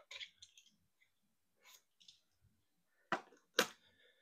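Small clicks and taps from a die-cast toy car being handled and lifted off its display stand, with two sharper clicks about half a second apart a little after three seconds in.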